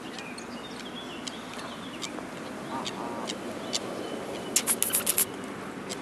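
Mute swan grazing close by, its bill tearing at grass in a quick run of crisp clicks about four and a half seconds in, with scattered fainter plucks before. A short bird call about three seconds in.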